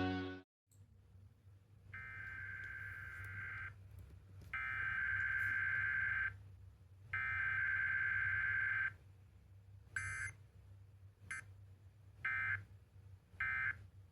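Emergency Alert System SAME header: three harsh warbling digital data bursts, each just under two seconds with a short gap between, followed by several much shorter bursts later on.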